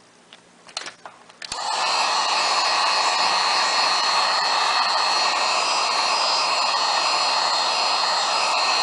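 A few handling clicks, then a hot-air blower switches on about a second and a half in and runs steadily, an even rush of air with a faint motor whine. It is heating the phone to soften the adhesive under the touch-screen glass.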